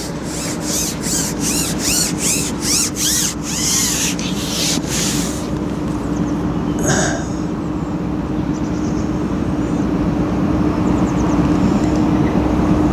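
Steady hum of distant road traffic, with a rhythmic whooshing about three beats a second for the first five seconds and a single knock about seven seconds in.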